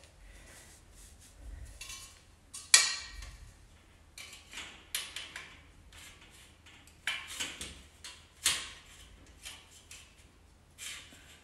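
Knocks and clattering of furniture parts being handled and fitted together during assembly: a string of separate sharp knocks and rattles, the loudest about three seconds in.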